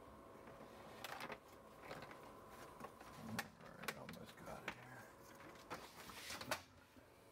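Faint scattered clicks and rustles of handling, cords and gear being moved about, over a steady faint hum.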